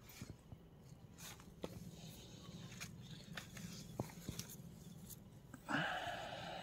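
Cherry tomato plant stems and the surrounding grass rustling as hands part and handle the plant, with scattered small snaps and clicks. A louder, longer rustle comes near the end.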